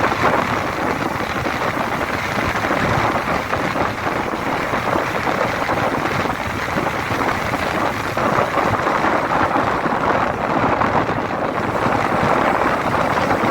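Steady road traffic noise, an even rushing sound with no distinct events.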